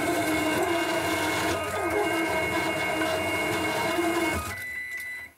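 Delta 3D printer's stepper motors whining steadily while homing, with a pinched cable pulled taut in the mechanism so the axes run badly. The whine drops sharply about four and a half seconds in and cuts off just before the end.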